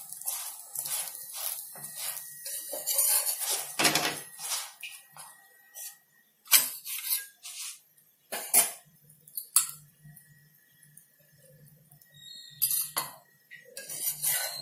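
Steel spatula scraping and clinking against a nonstick tawa as a chapati is turned and moved about. The scrapes come thick and fast for the first few seconds, then give way to a few sharp single clinks.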